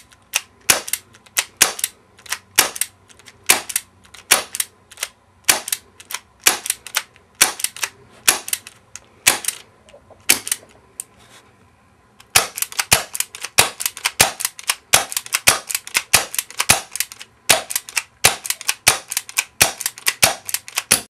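Airsoft Colt Python gas revolver firing double action, a string of sharp cracks. They come about one or two a second at first, stop briefly about ten seconds in, then follow in fast runs of several a second.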